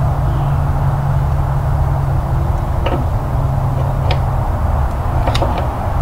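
Steady low hum with a few light metal clicks from the ATV's rear brake caliper being handled.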